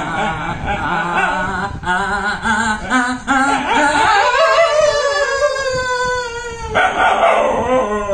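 A man singing with a wavering voice while a dog howls along with him. In the middle there is one long howl that slides slowly down in pitch.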